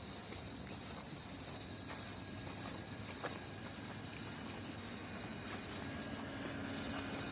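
Outdoor background noise with insects chirping: runs of short high chirps about three a second over a steady high whine. A low hum comes up near the end.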